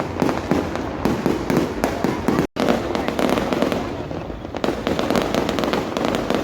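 Aerial fireworks going off in a rapid, continuous barrage of overlapping bangs and crackles, with the sound cutting out for an instant about two and a half seconds in.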